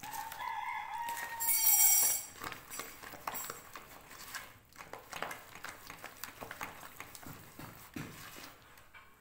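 Soft, oily cookie dough being squeezed and kneaded by hand in a plastic bowl, making irregular wet squelches and smacks. During the first two seconds a loud pitched animal call sounds over it, the loudest thing here.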